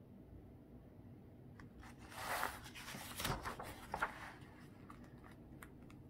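A picture book's page being turned by hand: a paper rustle with a few light taps in the middle.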